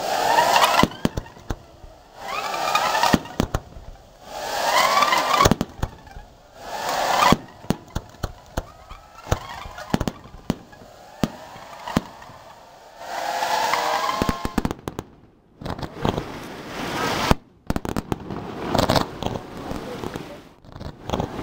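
Aerial fireworks going off: many sharp bangs and crackles, with bursts that swell and fade about every two seconds during the first half.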